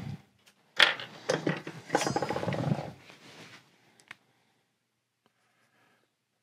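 Metal golf club parts and tools being handled on a workbench: a sharp knock, a few clinks, and a short stretch of rattling clatter, then quiet from about four seconds in.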